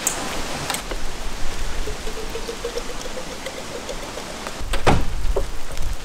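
Gear being handled at a car's open boot: rustling and a few knocks, with a louder thump about five seconds in, over a steady rain-like hiss.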